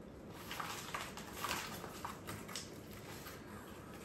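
Plastic courier mailer rustling and crinkling in a few short, irregular bursts as it is handled to get the circuit board out.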